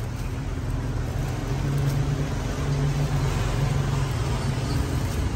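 Road traffic passing close by: a steady engine hum that slowly grows louder.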